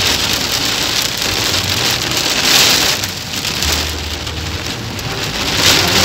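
Heavy rain drumming on a car's windshield, heard from inside the car, swelling about two and a half seconds in and again near the end.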